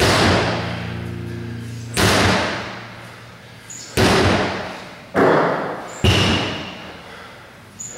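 Heavy thuds about every one to two seconds, five in all, each ringing on in a large echoing room. Music fades out over the first two seconds.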